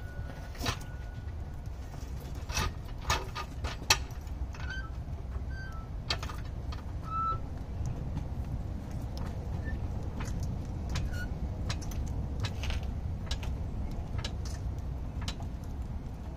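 Floor jack being worked under a car: scattered metallic clicks and clunks, with a few short faint squeaks, over a steady low outdoor rumble.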